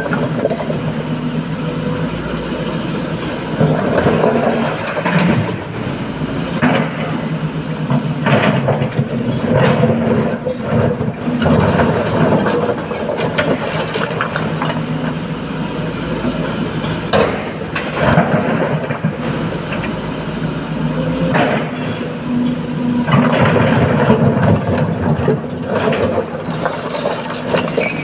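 SANY SY225 excavator's diesel engine running steadily and swelling in level again and again as the hydraulics take load during truck loading, with scattered knocks.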